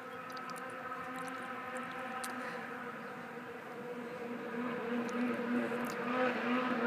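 Polaris IQR 600 snowmobile's two-stroke engine running at a steady high pitch as the sled skims across open water, growing louder over the last couple of seconds.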